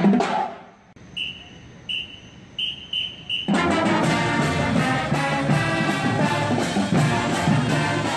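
Marching band playing: brass, including sousaphones and trombones, over a steady drum beat. The band comes in about three and a half seconds in, after a quieter stretch with five short high tones.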